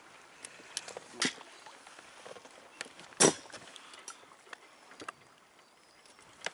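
Scattered knocks and scrapes of handling in a small fishing boat, with a louder knock about a second in and the loudest about three seconds in.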